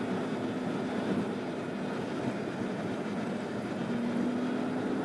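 Steady road and engine noise from a vehicle driving on a highway, with a constant low hum underneath.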